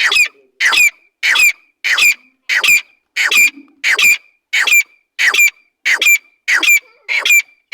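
Teetar (a francolin) calling: a loud, shrill note repeated steadily, about one and a half calls a second.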